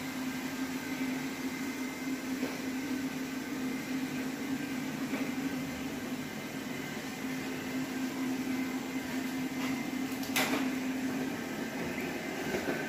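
Electric floor cleaner's motor running with a steady hum that stops near the end. There is a sharp knock just before it stops, and a few clicks after.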